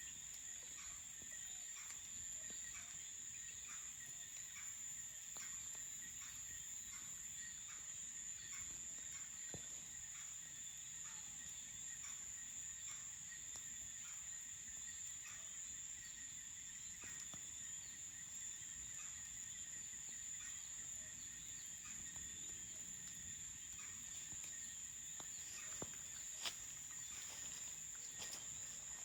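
Crickets trilling steadily at a high pitch, with faint scattered clicks and a few sharper clicks near the end.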